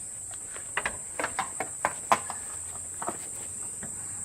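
Irregular sharp metal clicks and knocks of spanners being handled, the loudest a little after two seconds in, over a steady high-pitched cricket chorus.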